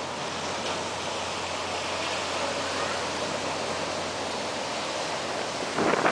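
Steady rushing of storm wind and surf. Near the end a strong gust starts buffeting the microphone, much louder and rougher.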